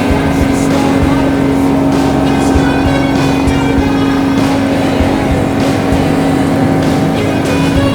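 Helicopter in flight: steady engine and rotor noise with a strong constant hum.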